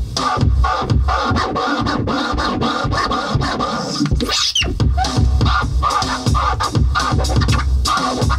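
Electronic beat with heavy bass and turntable-style scratch sounds over it, played live on a Maschine groovebox. The bass drops out for a moment about halfway through.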